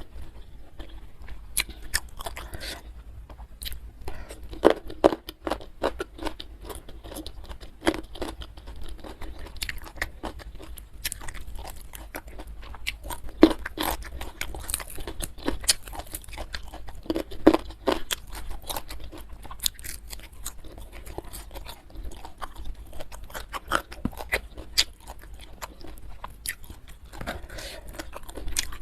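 Close-miked eating: a person chewing and biting food, with many sharp, irregular crunches and crackles.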